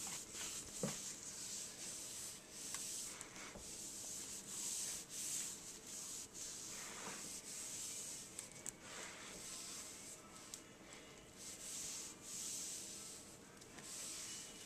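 A towel wiping a granite countertop: a run of irregular swishing rubbing strokes, with a small knock about a second in.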